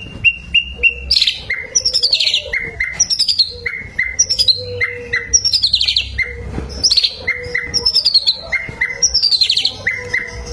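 A bird singing: runs of short, high chirps alternating with quick falling trills, the phrases repeating about once a second.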